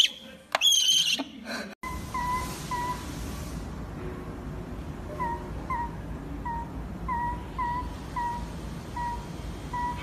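Snowy owl giving two loud, high-pitched whistling screeches. After a short break, a string of short, soft high peeps follows, about two a second.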